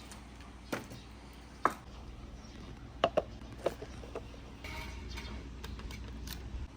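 Marbles running down a wooden marble run: a series of sharp single clicks and knocks as they drop and strike the track, then a softer stretch of rolling for the last couple of seconds.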